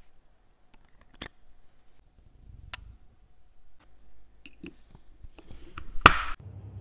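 Light clicks of small watch parts being handled, then a sharp snap about six seconds in as a green ceramic bezel is pressed home onto a Rolex Submariner's steel case.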